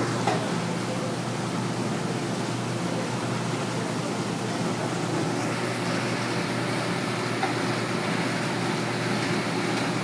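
Potato washing machine running: a steady motor hum over an even noise, with two small knocks, one just after the start and one about seven seconds in.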